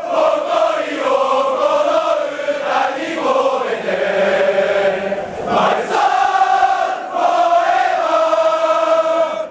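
A large crowd of football supporters singing a chant together in unison, in long held notes, with a short break about halfway through before the singing picks up again.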